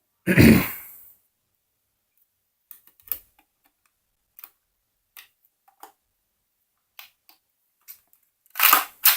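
Plastic LEGO bricks of a brick-built toy rifle clicking and knocking as it is handled: a louder knock just after the start, then scattered single light clicks, and a louder clatter of clicks near the end.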